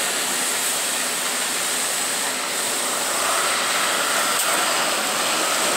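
Steady hiss of traffic on wet asphalt as a Marcopolo Torino city bus on a Volkswagen 17.260 OD chassis drives past close by and turns, its tyres on the wet road, with a faint whine between about three and five seconds in.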